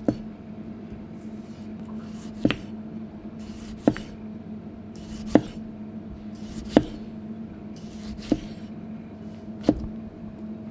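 Kitchen knife slicing a tomato into rounds on a plastic cutting board: a sharp knock each time the blade reaches the board, seven in all, evenly spaced about a second and a half apart. A steady low hum lies underneath.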